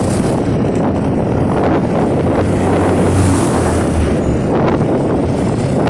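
A moving motorcycle's engine running steadily under wind rushing over the microphone, with a dense hiss throughout.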